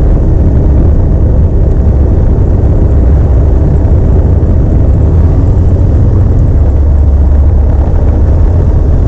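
Alpi Pioneer 300's Rotax flat-four engine and propeller running steadily on the ground, heard from inside the cockpit as a loud, even low drone.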